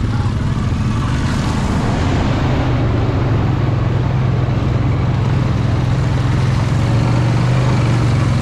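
Honda Foreman ATV's single-cylinder engine running loud and steady at high revs.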